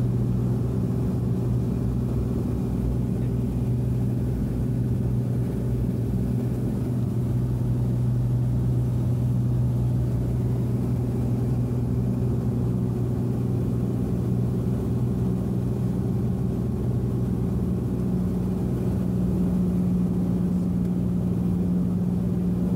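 Cessna 210 Centurion's six-cylinder engine and propeller droning steadily inside the cockpit on approach to landing, its tone shifting higher near the end.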